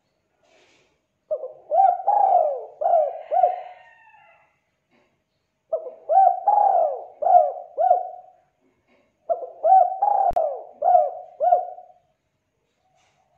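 Spotted dove cooing: three phrases, each a quick run of four or five coos, a few seconds apart.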